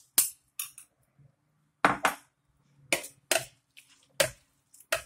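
A metal utensil clinking and knocking against a large glass bowl while shredded cabbage, carrot and pickled chile strips are mixed in it: a series of sharp, irregularly spaced knocks, some in quick pairs.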